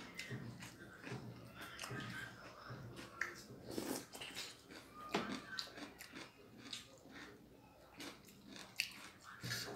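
Close-up eating sounds: a person biting and chewing food, with irregular wet mouth smacks and clicks.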